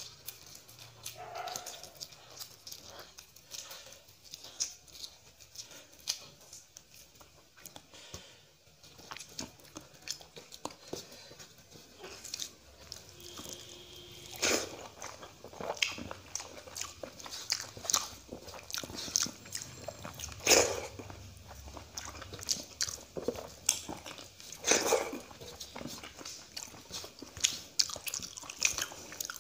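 Wet chewing and mouth clicks of a man eating rice mixed with curry by hand, with soft squishing of his fingers working the rice on a metal plate. A few louder sharp smacks stand out, one about halfway through, another about two-thirds of the way and a third near the end.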